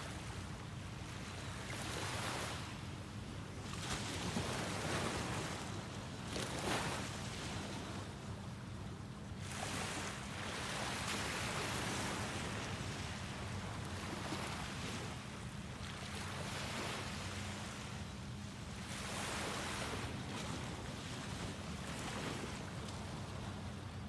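Small ocean waves breaking and washing up the sand, each wash swelling and fading over a few seconds, over a low steady rumble.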